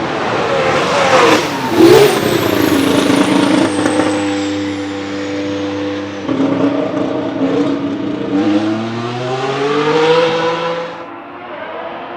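The Red Bull Ford Powertrains V6 turbo-hybrid engine of the 2026 Racing Bulls VCARB03 Formula 1 car, loud and close: its pitch dips and swings back up as it passes about two seconds in, then holds a steady note. About eight and a half seconds in the engine note climbs as the car accelerates, then cuts off suddenly near eleven seconds.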